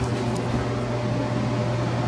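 Steady low hum of machinery running aboard a boat, with a fainter higher tone held above it.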